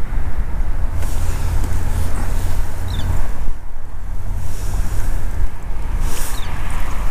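Wind buffeting the camera microphone on open ice: a heavy, steady low rumble, with a couple of brief hissing rustles about a second in and near the end.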